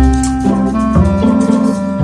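Instrumental background music: held chords over a bass note that changes about once a second.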